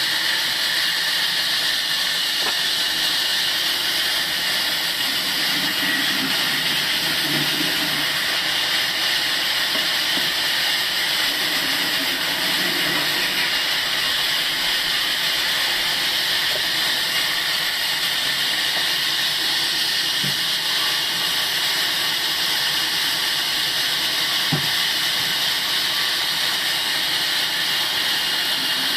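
Sawmill machine running, its blade giving a steady high hiss as it works through wood, with a few faint knocks.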